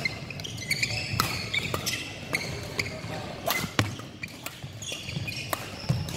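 Badminton rally on an indoor court: sharp racket hits on the shuttlecock at irregular intervals, with players' shoes squeaking on the court floor.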